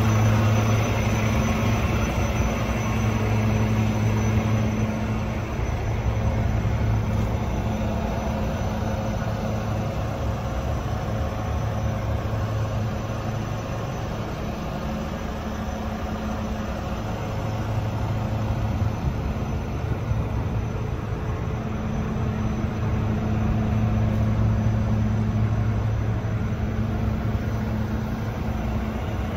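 Volvo FM 300 garbage truck's diesel engine idling steadily with a low, even hum that grows louder and softer by turns.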